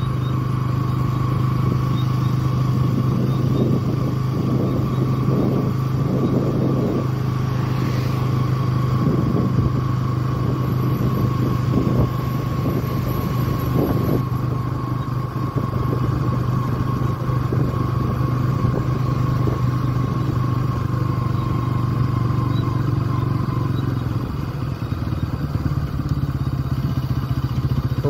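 Motorcycle engine running steadily while riding, with a strong low hum and road noise; near the end the engine note eases off.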